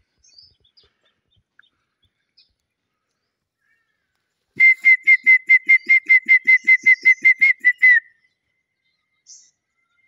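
A rapid run of about twenty loud whistled notes at one steady pitch, about six a second, lasting some three seconds from midway, the last note dipping slightly: a 'kick, kick, kick' eagle-like call.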